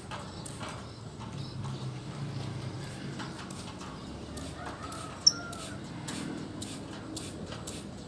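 Lovebird giving one sharp, short, high chirp about five seconds in, over a run of light ticks and taps and a low hum.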